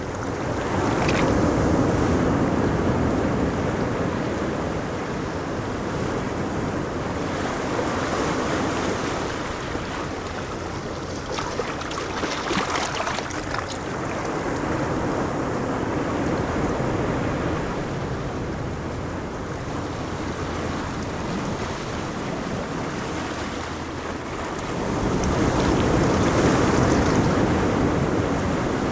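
Ocean waves breaking on a beach, a continuous surf wash that swells and eases as successive waves come in, with the biggest swells near the start and near the end. Wind buffets the microphone.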